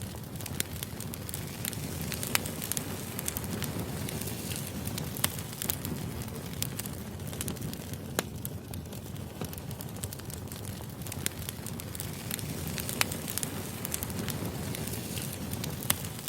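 Firewood burning: a steady low rumble with scattered crackles and a few louder sharp pops.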